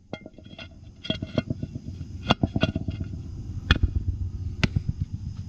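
Metal well cap clinking and knocking against the well casing as it is fitted and pressed down by hand. There are a dozen or so sharp metallic taps at uneven intervals, the loudest a little over two seconds in and near four seconds, over a low steady hum.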